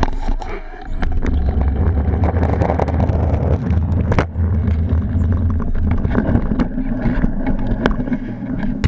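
Rumbling noise and knocks from an action camera being handled and moved at ground level, with wind buffeting the microphone.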